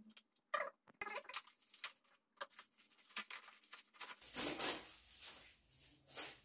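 Shiny gift-wrapping paper being torn and crinkled off a small present by hand: quick irregular crackles and rips, busier and louder in the second half.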